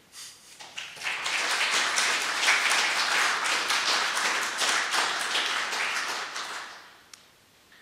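Audience applauding: many hands clapping at once, swelling about a second in and dying away near the end.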